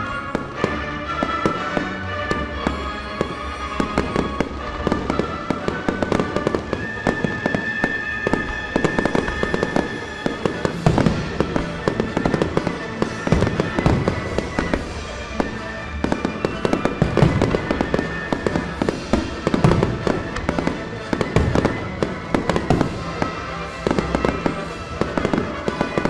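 Aerial fireworks bursting in rapid, irregular bangs and crackles over a music soundtrack. The bangs grow denser and louder about halfway through.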